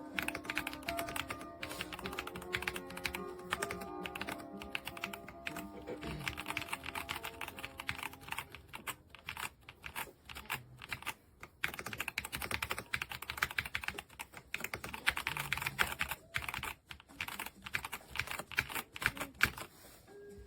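Typing on a YUNZII B75 Pro gasket-mount mechanical keyboard: quick runs of soft keystrokes with short pauses between them.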